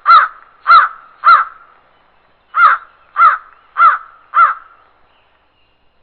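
Crow cawing: a run of short, harsh caws about 0.6 s apart, three of them, a pause of about a second, then four more.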